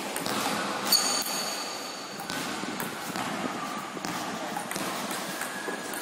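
Table tennis ball clicking off rubber paddles and the table during a rally: scattered sharp ticks. The loudest is a click about a second in, followed by a short high ring.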